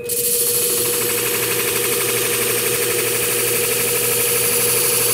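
Scimech flathone sharpening machine running fast with its steady motor hum, while a curved shear blade held in the curve adapter grinds against a coarse abrasive disc, a steady hissing grind of steel on abrasive. The blade is being sharpened to raise a burr.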